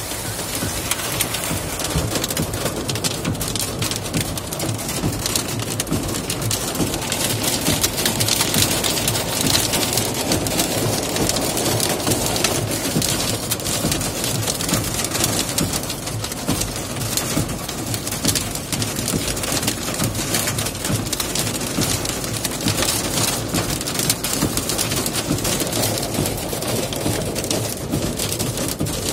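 Hail and heavy rain pelting the van, heard from inside the cab: a dense, steady clatter of countless small impacts over the hiss of the downpour.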